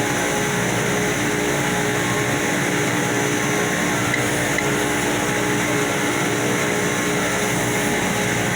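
Electric power sander running steadily against a surface: an even, dense hiss with a few held motor tones, unchanging throughout.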